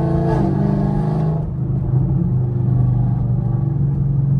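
Chevrolet Camaro's engine running steadily as the car cruises, heard from inside the cabin. Background music cuts out about a second and a half in.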